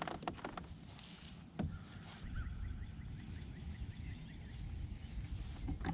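Quiet outdoor sound on a fishing kayak. There are a few light clicks, a sharper knock about a second and a half in, then a low rumble, with a fast run of faint high chirps for about two seconds.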